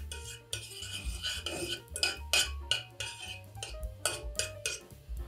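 Spoon clinking and scraping against a pan, a string of short knocks, as tomato paste is spooned in and stirred.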